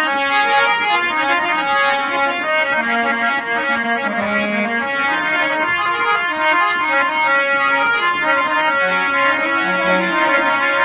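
Instrumental break in a Rajasthani folk song: a melody of held notes played on a reedy keyboard instrument, with no singing.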